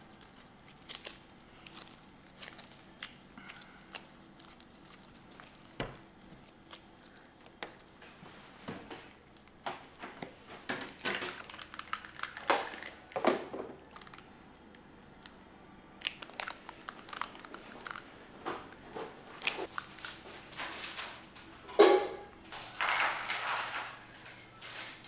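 Kitchen handling noise: gloved hands squeezing and patting soft cookie dough on a metal sheet pan, with scattered light clicks and taps from a metal scoop and the pan. A sharper knock comes near the end.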